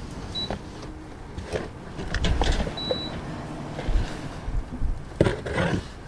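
Clothes and plastic hangers being handled, with scattered rustles and clicks over a low wind rumble on the microphone. Two short high squeaks come in, one early and one near the middle.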